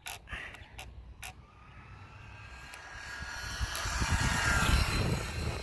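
Radio-controlled car driving on asphalt: its motor whine and running noise rise in pitch and grow louder as it comes close, peaking a little past the middle, then ease off. A few sharp clicks come in the first second or so.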